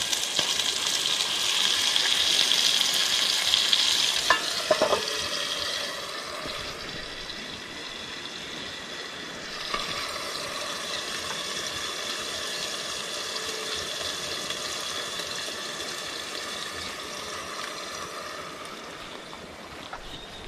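Pieces of meat frying in hot oil in a pan, a steady sizzle that is louder for the first several seconds, then settles lower.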